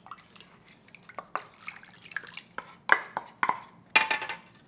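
Water and thin seasoning sauce poured from a stainless-steel bowl and a glass measuring cup into a braising pan of chicken, with a run of sharp clinks and knocks of kitchenware, a few ringing briefly near the end.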